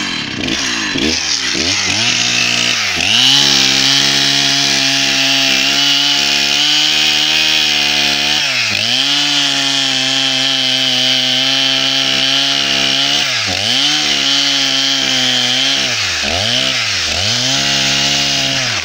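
Two-stroke chainsaw cutting at high revs through an old, dry log packed with termite soil and sand, grit that quickly blunts the chain. Its revs dip briefly and recover a handful of times as the cut goes on.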